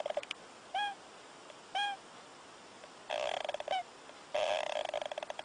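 An animal snoring: rattling snores about a second long, alternating with short squeaky whistles, three squeaks in all.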